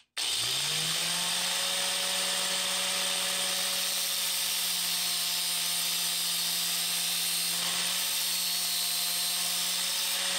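Angle grinder motor starting, its pitch rising over the first second, then running steadily as a steel nail is pressed against its spinning disc, which grinds it with a steady hiss.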